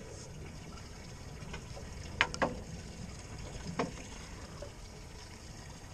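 Low, steady wind and water noise on a small boat at sea, with three sharp clicks, two close together about two seconds in and one nearly four seconds in.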